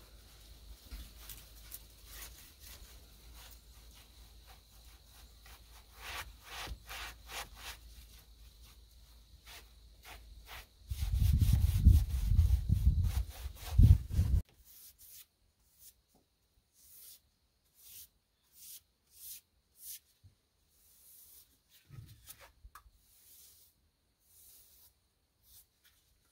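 A brush scrubbing a finish onto rough log wood in quick, short rasping strokes. About eleven seconds in there is a loud low rumble lasting roughly three seconds, after which the strokes become sparse and fainter.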